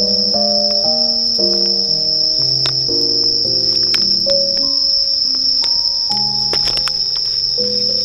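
Crickets chirring in one steady, unbroken high trill, with background music of changing melodic notes beneath it and a few light clicks.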